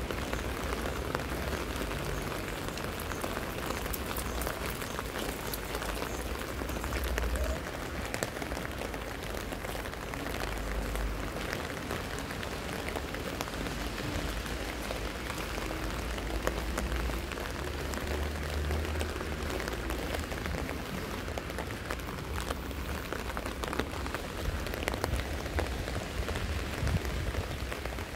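Steady rain falling on wet street paving, many small drop clicks over an even hiss, with an uneven low rumble underneath.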